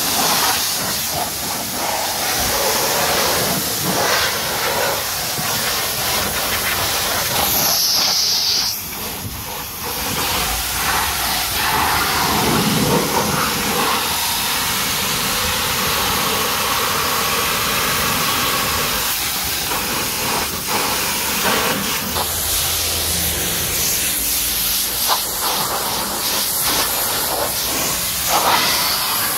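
High-pressure water jet from a pressure-washer lance hissing steadily as it sprays against a car's wheel and bodywork. It dips briefly about nine seconds in.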